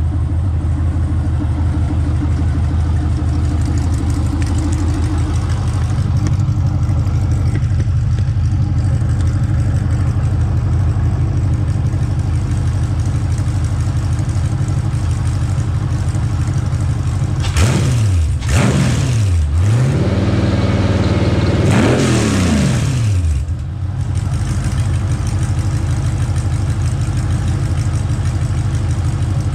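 Sandrail's LS1 V8 engine idling steadily, then blipped twice quickly and revved once more for longer about two-thirds of the way through, each time falling back to idle.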